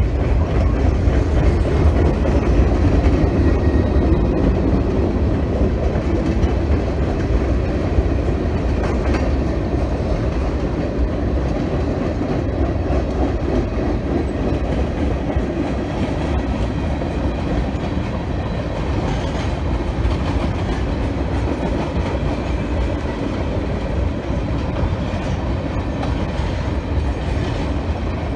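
Freight train of boxcars and tank cars rolling past, its steel wheels running steadily on the rails, a bit louder in the first few seconds.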